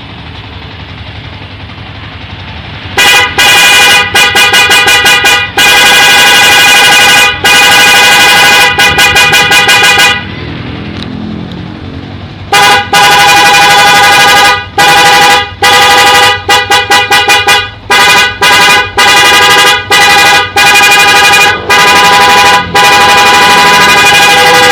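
Electric 'prikitiw' novelty horn on a Yamaha Xabre motorcycle, sounded by a horn module in very loud blasts. Long held multi-tone blasts alternate with quick runs of short toots. It starts about three seconds in, with a pause of a couple of seconds around the middle.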